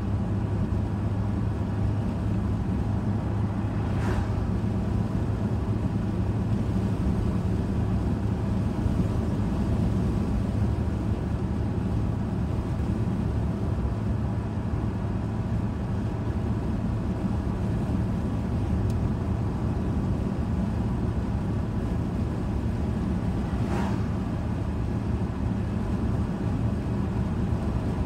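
Steady low engine and tyre noise of a car driving at road speed, heard inside its cabin, with two brief rushing sounds, one a few seconds in and one near the end.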